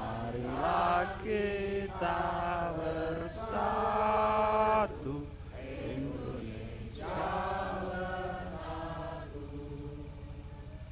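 Voices chanting slowly in long, held notes that bend up and down in pitch, loudest over the first five seconds and softer after.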